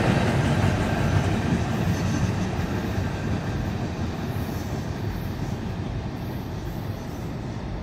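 Loaded CSX coal train's hopper cars rolling away on the rails, a low rumble of wheels on track that fades steadily as the end of the train recedes.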